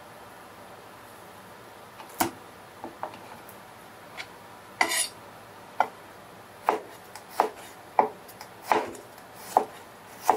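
Kitchen knife cutting garlic cloves on a cutting board: after a quiet start, sharp single knocks of the blade on the board, slow and unevenly spaced, with one longer scraping stroke about halfway, then roughly one cut a second.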